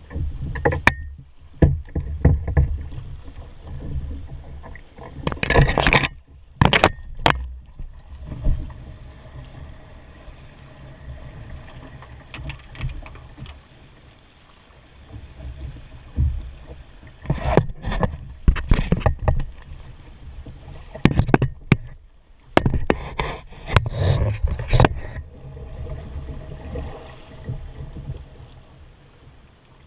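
A canoe being poled down a fast, flooded creek: water rushing and gurgling around the hull over a low rumble, with three louder spells of noise about 5, 17 and 23 seconds in.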